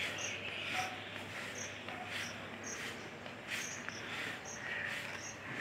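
A long-handled garden rake scraping loose dry grass over bare soil in a few separate strokes, with a short high chirp repeating about once a second.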